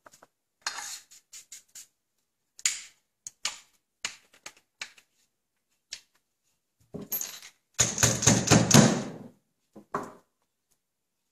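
Scattered plastic-and-metal clicks and knocks as a Magpul polymer shotgun forend is worked onto the metal action-bar assembly, then a dense run of rapid clicking and rattling in the second half as the tight-fitting parts are pushed together.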